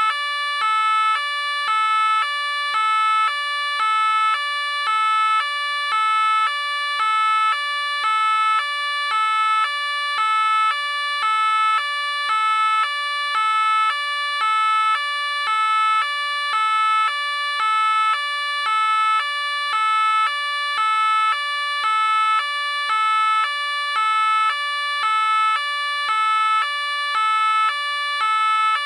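French police car two-tone siren, alternating evenly between a high and a low note, each held for about two-thirds of a second.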